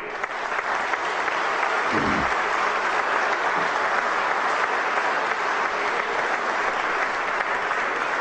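Audience applauding: dense clapping that breaks out abruptly and holds steady.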